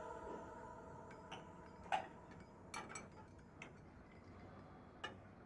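Faint, irregular clinks of cutlery against plates and glassware at a dinner table, about half a dozen light strikes spread over several seconds.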